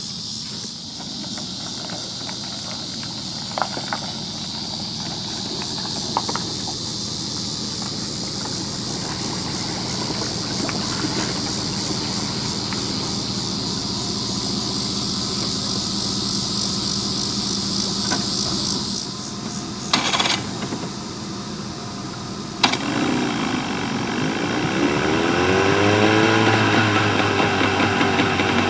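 Crickets drone steadily over a low hum. After two sharp knocks, a small outboard boat motor runs and revs up and down a few times near the end.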